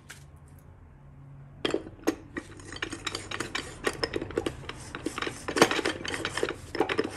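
GM TH400 forward clutch drum being twisted back and forth by hand inside the transmission case, its hub clicking and rattling against the direct clutch friction plates as it is worked onto their splines. The rapid metallic rattling starts about a second and a half in and keeps on.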